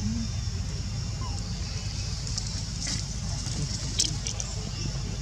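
Outdoor background: a steady low rumble under a steady high hiss, with a few sharp clicks, the loudest about four seconds in.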